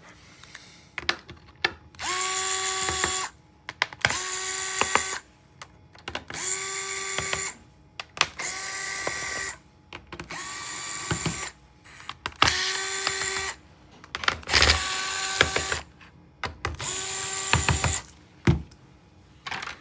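Cordless electric screwdriver spinning in about eight short runs of roughly a second each, each starting with a brief rising whine, loosening the bottom-cover screws of a Dell Latitude 7640 laptop.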